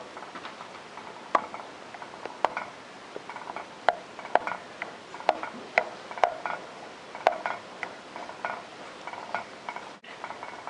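A spoon stirring milk curdling with vinegar in a pot, clinking and scraping against the pot's sides in irregular knocks about once or twice a second.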